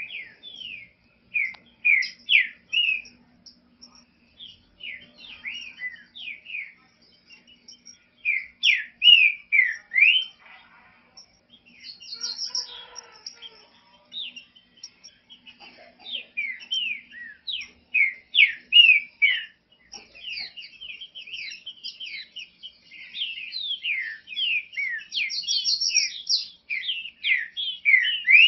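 Green-winged saltator (trinca-ferro) singing: phrases of quick, falling whistled notes repeated in bursts with pauses of a second or two, becoming nearly continuous in the last few seconds. This is a warm-up song, used to stir a caged trinca-ferro into singing.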